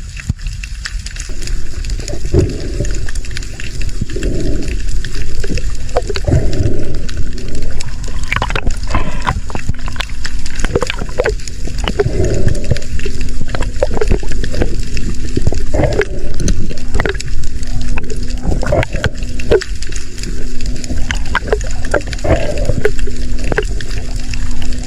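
Water gurgling and sloshing around an underwater camera on a spearfishing dive, with swells of bubbling every couple of seconds and many sharp clicks. A steady low hum joins about seven seconds in.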